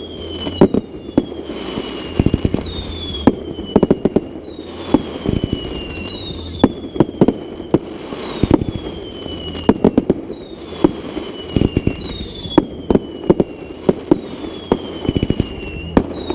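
Fireworks display: a dense run of sharp bangs and crackling reports, with whistling shells whose whistle falls in pitch, one about every second.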